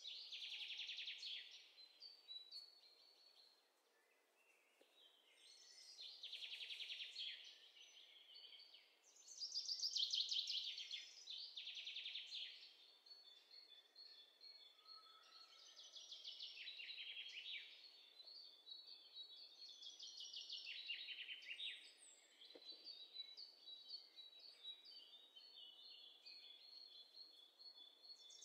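Birdsong sound effect: birds chirping in repeated bursts of rapid, high trills, loudest about a third of the way in.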